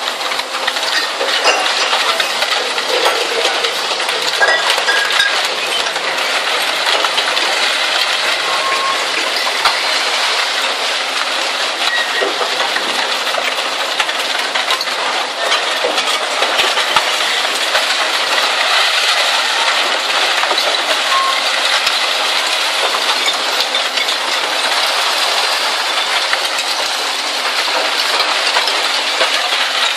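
Zato Blue Devil twin-shaft shear shredder running, tearing up scrap steel: a steady, dense metallic clatter and clinking of shredded steel with no pauses.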